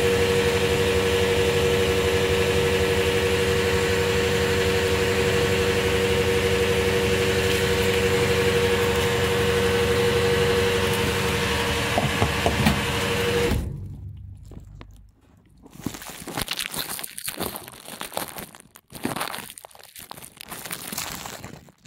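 Fuel pump dispensing diesel through a nozzle into a car's filler neck, a steady hum with a constant tone. A few clicks come just before the flow stops, about two-thirds of the way through; after that there are irregular clicks and rattles as the nozzle is handled and pulled out.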